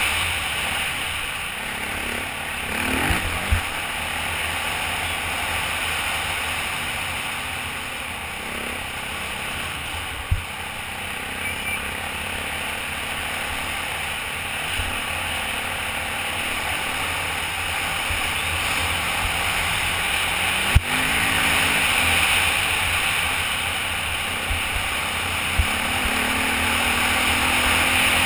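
Off-road motorcycle running at speed on a dirt trail, heard under heavy wind rush over a helmet-mounted camera, its engine pitch rising a few times as it is throttled up. A few sharp knocks cut through, the loudest about 21 seconds in.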